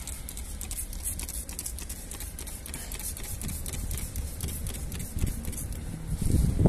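Trigger spray bottle squirting cleaner onto an engine cylinder head, a run of short hissing sprays with light clicks over a steady low rumble.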